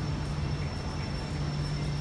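Steady city street noise: a traffic rumble with a low hum that drops out briefly now and then, and a faint thin high whine.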